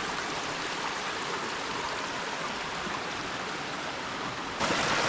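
Small mountain creek rushing over rocks, a steady water noise that gets suddenly louder near the end.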